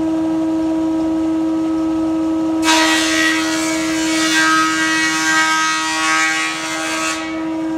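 Powermatic 20-inch thickness planer running with a steady tonal hum; about 2.7 s in, the cutterhead knives bite into a rough board fed through the rollers, and a loud, harsh cutting noise lasts about four and a half seconds before the machine settles back to its running hum as the board clears the knives.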